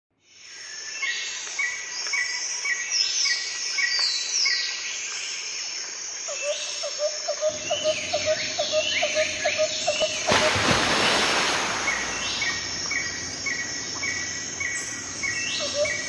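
Birds chirping and whistling, with insects: trains of short, evenly repeated chirps and high descending whistled notes. A lower, faster chirping series runs for a few seconds midway, and a rushing hiss follows for about two seconds.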